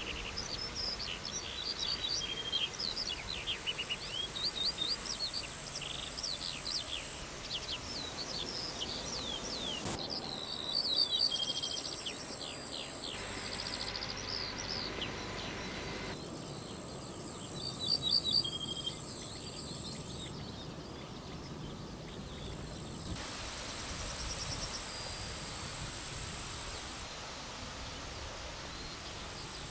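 Outdoor summer ambience of small birds chirping and twittering, with a steady high insect buzz that cuts in and out. The background shifts abruptly several times, and the bird calls thin out in the last third.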